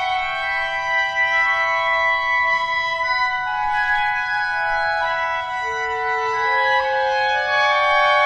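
Clarinet ensemble playing a dense chord of long, overlapping held notes. Individual voices change pitch at staggered moments, so the chord shifts slowly.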